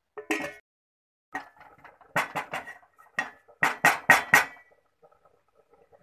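Metal clanks of a steel vessel knocking against the rim of an aluminium cooking pot as milk is poured in, about ten knocks, ending in a quick run of four a little after halfway. Near the end, faint small bubbling from the milk heating in the pot.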